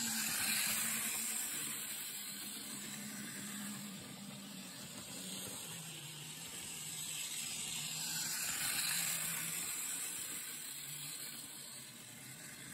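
O gauge toy train running on three-rail track: a steady motor hum and wheel rumble over a hiss. It swells twice as the train comes round, near the start and again about nine seconds in.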